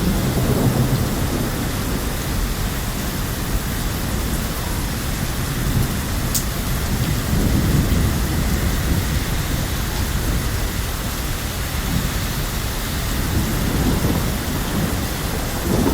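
Heavy rain falling: a steady hiss with a continuous low rumble underneath.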